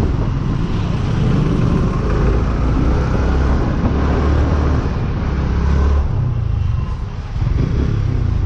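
Yamaha R15 V3's single-cylinder engine running at low speed under the rider, with a steady low rumble of road and wind noise, easing briefly about seven seconds in.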